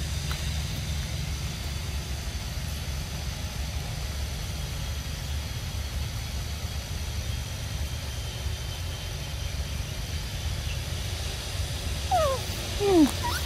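A steady low rumble throughout. About twelve seconds in, a few short animal calls each slide down in pitch, the loudest sound here.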